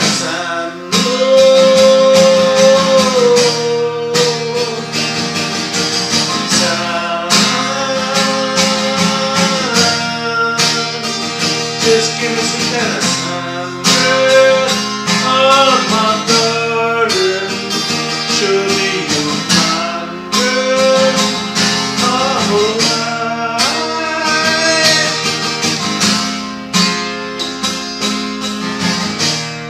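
A man singing a soul song while strumming an acoustic guitar.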